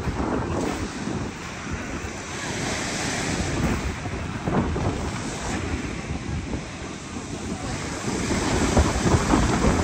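Sea waves washing onto the beach, rising and falling in swells, with wind buffeting the microphone.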